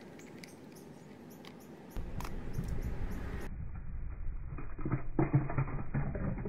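Small diecast-and-plastic Matchbox 6x6 ATV toy rolling down a rough ramp, its wheels rattling and clattering in irregular knocks that are loudest just after halfway, as it runs toward the water.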